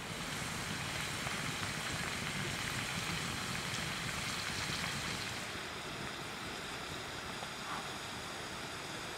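Potato fries deep-frying in hot oil in a frying pan over a campfire, a dense crackling sizzle. About five seconds in it drops back to a softer, steadier hiss.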